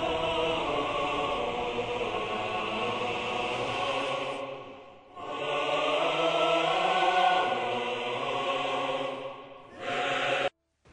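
Choral music with long held notes, in two phrases, the first fading out about halfway through; it cuts off abruptly just before the end.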